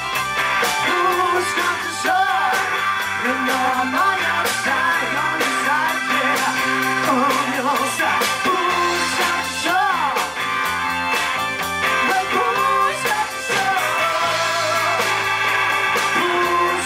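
Live rock band playing: sung vocals over electric guitar, electric bass, keyboard and a Pearl drum kit keeping a steady beat.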